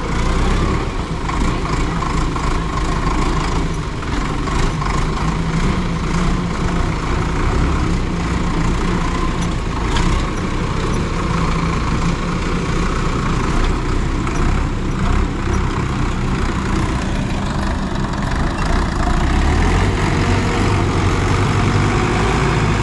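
Four-wheel-drive farm tractors' diesel engines running under load as they drag soil and climb a dirt bank, a steady low engine note. A deeper rumble builds near the end as a tractor comes up the bank.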